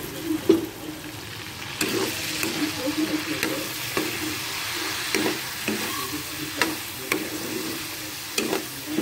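Pork and onion frying in oil in a metal wok, sizzling, as a metal spoon stirs and scrapes the pan with scattered clicks and clinks. The sizzle gets louder about two seconds in.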